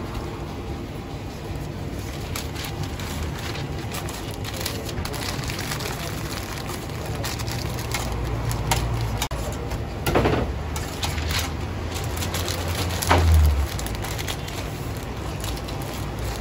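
Tongs clicking and scraping as shredded doner meat is laid on flatbreads, and paper wrappers crinkling as the wraps are rolled, over a steady low rumble. Two louder clatters come about ten and thirteen seconds in.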